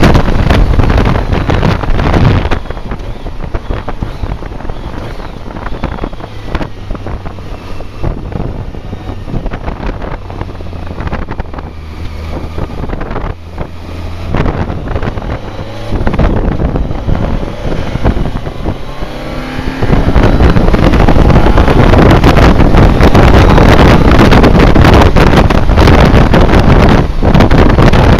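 BMW K1200R Sport's inline-four engine on the move, with wind buffeting the camcorder's microphone. Loud wind rush at first drops away after a couple of seconds, leaving the engine at low revs. The engine pulls up in pitch about sixteen seconds in, and heavy wind noise returns from about twenty seconds in as speed builds.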